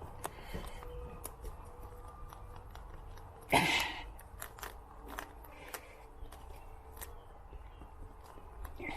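Tire plug insertion tool forcing a rubber-cement-coated plug into a tire puncture: scattered small clicks and scrapes, with one louder rasp about three and a half seconds in.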